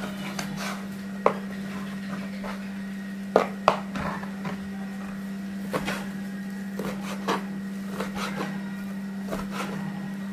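Kitchen knife cutting slices of ham into small squares on a plastic cutting board: irregular taps of the blade against the board, with the sharpest knocks about a second in and twice in quick succession around three and a half seconds in, over a steady low hum.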